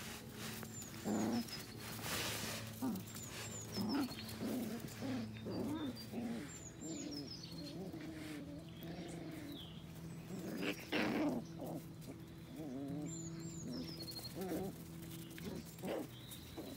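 Young puppies whining and yelping in many short, wavering cries, one after another.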